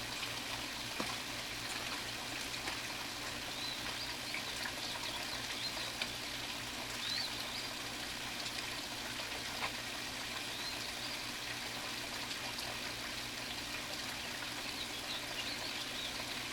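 Steady trickle of running water, with faint high chirps and a few light knocks scattered through it.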